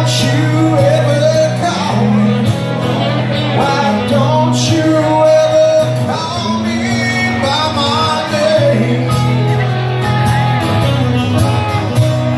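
Live duo playing a country-rock song: a solid-body electric guitar and a strummed acoustic-electric guitar, with a man singing into the microphone over them.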